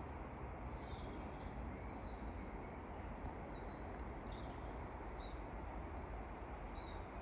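Small birds chirping, short high calls scattered throughout, over a steady low background noise.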